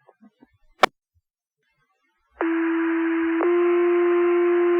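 A sharp radio click, then a fire-department two-tone pager alert over the dispatch radio: one steady tone held about a second, then a second, louder tone held on.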